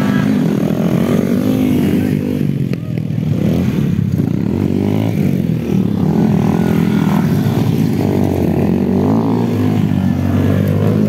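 Small motorcycle engines running and revving, the pitch rising and falling over and over.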